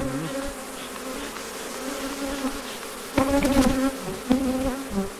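Agitated honeybee colony in an opened hive buzzing: a steady, roar-like hum of disturbed bees. Bees buzz louder and closer, wavering in pitch, about three seconds in and again a second later.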